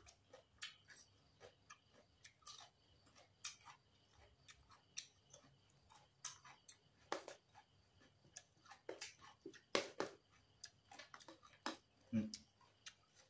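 Close-up chewing of a mouthful of som tam (shredded green papaya salad): soft, irregular crunches and wet mouth clicks, a few each second.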